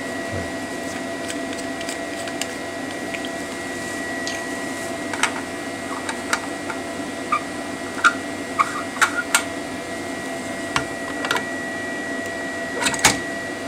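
Steady whirring hum of running lab equipment with a thin high whine, under scattered small clicks and knocks as a scientific camera is handled and fitted onto a C-mount port, with a louder pair of clicks near the end.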